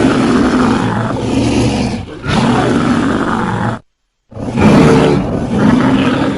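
Designed King Kong roar sound effects, deep and rough. One long roar dips briefly about two seconds in and stops just before four seconds. After half a second of dead silence a second roar starts and fades out near the end.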